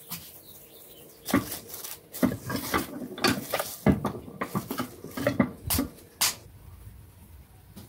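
A metal tortilla press being worked over a ball of corn masa in plastic: a run of knocks and clatters as the plate and lever are pressed down and lifted. There are two sharp clanks near the end.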